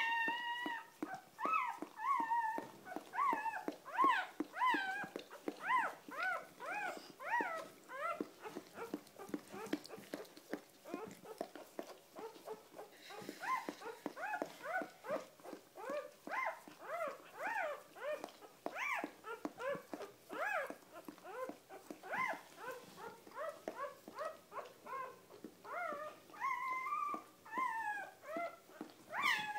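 Newborn puppy crying: a long run of short, high-pitched squeaks, each rising and falling in pitch, a few a second, easing off for a few seconds midway before picking up again.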